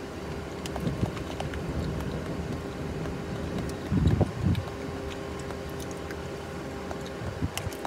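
Eating from a small plastic dessert cup with a metal spoon, with faint spoon clicks and mouth sounds over a steady low hum in the car. A brief louder low sound comes about four seconds in.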